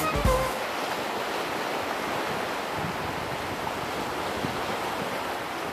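Steady rushing wash of sea waves.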